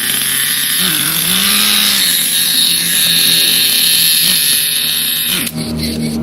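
Radio-controlled car's motor and drivetrain running with a steady high-pitched whine, which cuts off about five and a half seconds in and gives way to a low pulsing hum.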